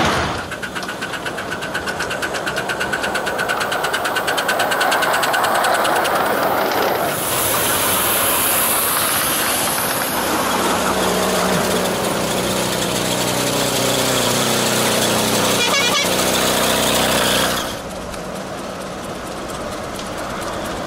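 Miniature ride-on railway locomotive running on 7¼-inch gauge track, with a small engine running steadily. For the first several seconds there is a fast, even rhythm. The sound changes at about seven seconds and drops suddenly in level near the end.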